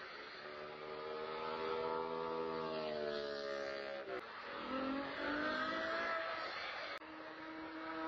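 Cars driving past on the road below with their engines accelerating, the engine note falling in pitch over the first few seconds, then a different engine note rising; the sound changes abruptly about four seconds in and again near the end.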